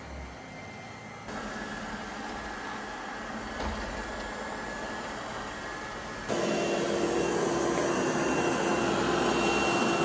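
360 S10 robot vacuum cleaner running, its suction stepped up from quiet mode through the higher settings. It gets louder a little over a second in and again near four seconds, then jumps to maximum 3300 Pa suction about six seconds in, where it runs markedly louder with a steady hum and a faint high whine.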